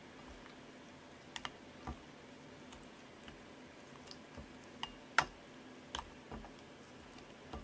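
Hands handling slime and things on a tabletop, making about a dozen small, scattered clicks and pops against a quiet room; the loudest is about five seconds in.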